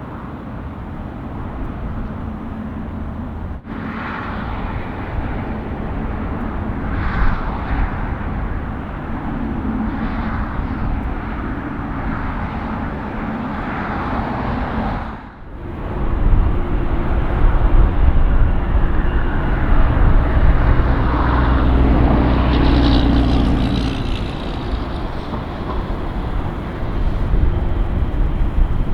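Jet airliner engine noise at an airport: a steady rushing jet sound that drops out briefly about halfway, then comes back with a heavier low rumble.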